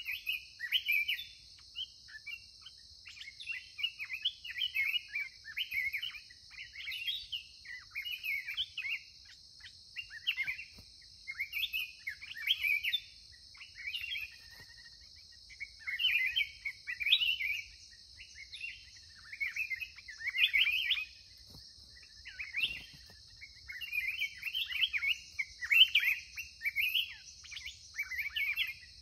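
Black-crested bulbuls singing: short, quick chirping phrases, one after another with brief gaps, over a steady high-pitched drone.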